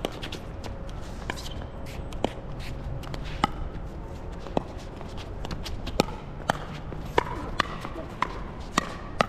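Pickleball rally: about a dozen sharp pops of paddles striking the plastic ball and the ball bouncing on the hard court, spaced a second or less apart and coming quicker near the end. Shoes scuffle on the court, and wind rumbles on the microphone.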